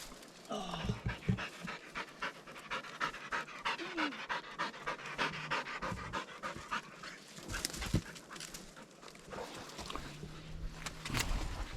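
A dog panting in a quick, even rhythm of about four breaths a second, with a single sharp click about eight seconds in.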